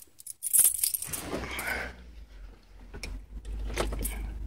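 Car keys jangling and a few sharp clicks as the ignition key of a 2000 Citroën Xsara Picasso is put in and turned, after a couple of seconds of handling noise. The car gives no response: no power is reaching it from the newly fitted battery.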